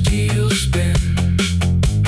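Loud background music: an instrumental stretch of a song with a heavy bass line and a driving, steady drum beat.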